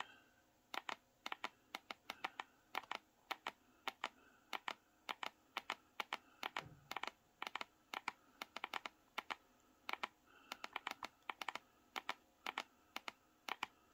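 Key presses on a Rii X8 mini wireless keyboard: a long run of short clicks, many in pairs, as the Fn and Windows keys are pressed together again and again to cycle the backlight colours.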